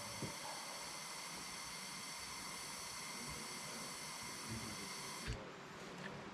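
Propane hissing steadily out of a blue canister into the gap between a tire's unseated bead and the rim, with a thin whistle over the hiss, filling the tire with fuel before it is lit to re-seat the bead. The hiss cuts off about five seconds in.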